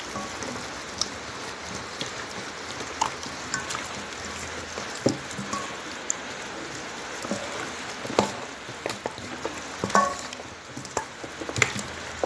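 Hands squeezing and kneading raw chicken pieces in a wet marinade: irregular squelching and squishing, with sharper wet smacks scattered throughout.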